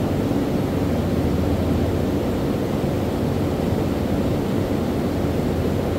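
Steady drone of cooling misting fans: a low, even motor hum under a constant rush of air.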